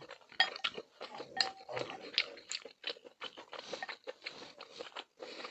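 Close-miked eating sounds: utensils clinking and tapping against a bowl in a rapid string of short clicks, a few with a brief ring, mixed with chewing.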